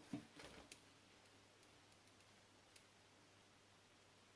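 Near silence, with a few faint clicks and light knocks in the first second, like small tools or parts being handled, and one tiny tick near the end.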